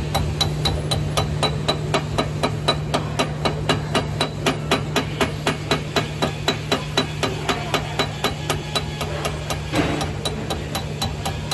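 Chipping hammer knocking slag off a fresh weld bead on steel, in quick, even blows about four a second, each with a ringing metallic tap. A steady low hum runs underneath.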